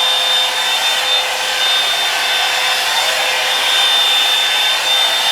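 Revlon blow dryer running steadily: a loud rush of air with a thin, steady high whine over it.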